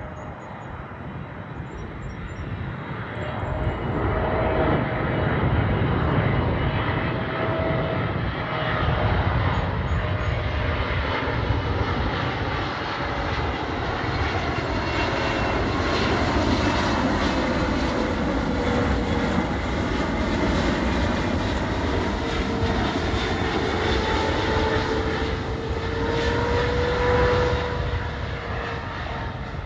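Boeing 777-300ER's twin GE90 turbofan engines as the airliner arrives: a jet rumble that swells about four seconds in and holds, with whining engine tones that slowly drift in pitch, easing off near the end.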